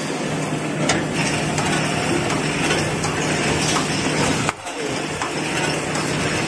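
Tissue-paper converting line making embossed kitchen-towel logs, running at speed: a steady, dense mechanical clatter and whir over a constant low hum. It dips sharply for a moment about four and a half seconds in.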